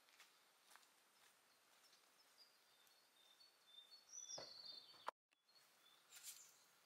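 Near silence with faint bird chirps and a soft knock about four seconds in.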